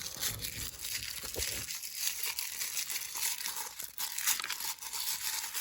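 Crinkly toy packaging wrapper being handled and opened: a steady crinkling and rustling with small crackles throughout.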